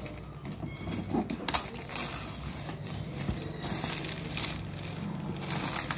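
Cardboard product box being handled and worked open: irregular crinkling, scraping and rustling of the packaging as it is turned and pulled at.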